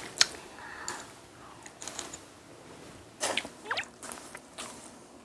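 Quiet eating at a meal: a few faint clicks of a spoon and chopsticks against the dishes, with soft chewing.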